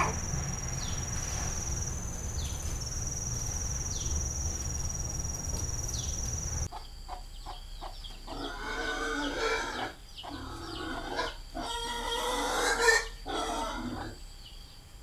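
A steady high-pitched whine over a low rumble, then, after a sudden cut about seven seconds in, animal calls in a run of short bursts that die away near the end.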